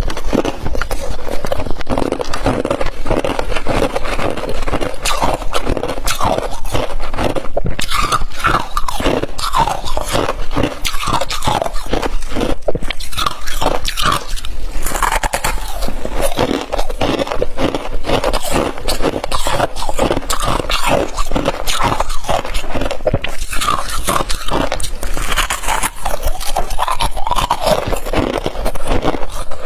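Humidifier frost crunching and squeaking as it is squeezed by hand and chewed: a dense, irregular run of crackly crunches with short squeaky glides.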